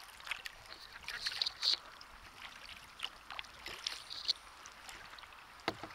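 Kayak paddle strokes: the blades dip into the river with a light splash and trickle at a slow, even pace. A sharp knock comes near the end.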